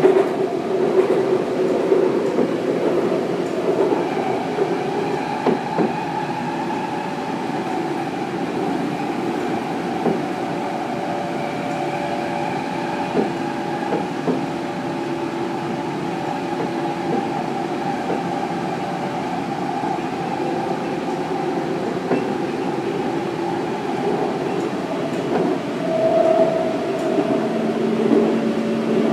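Kaohsiung MRT Red Line electric metro train running at speed on elevated track, heard from inside the car: a steady rumble of wheels on rail mixed with the hum of the motors, with occasional clicks. A low steady hum comes in near the end.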